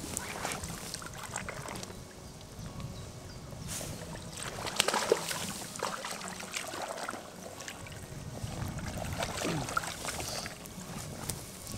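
Shallow river water splashing and sloshing, with irregular sharper splashes, as an angler wades and plays a hooked fish.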